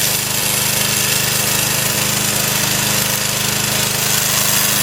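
Engine of a remote-control tracked lawn mower running steadily under load, a fast even chug with a constant hiss over it.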